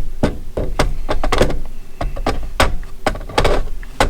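Hard plastic clicks and knocks, about a dozen in quick irregular succession, as an M18 battery pack is slid onto a Milwaukee M18 Fuel oscillating multi-tool and the tool is handled.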